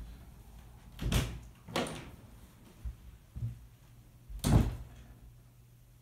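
Knocks and thumps of someone moving about and handling things out of sight: two about a second and two seconds in, a few fainter ones, and the loudest about four and a half seconds in.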